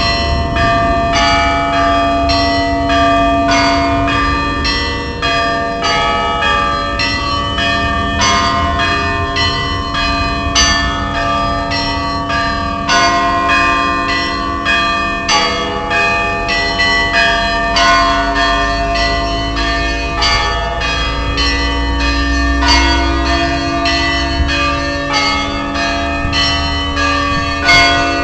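Orthodox church bells ringing: a quick pattern of smaller bells struck about twice a second over the long hum of larger, lower bells.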